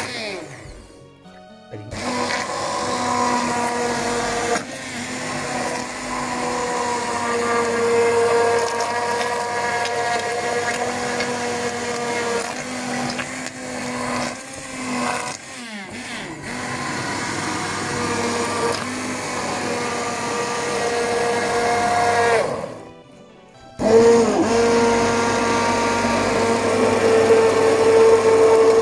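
Hand-held immersion blender running in a stainless steel pot, puréeing a thick braising sauce of red wine and peppers; a steady motor whine. It stops briefly just after the start and again near the end, then starts back up each time.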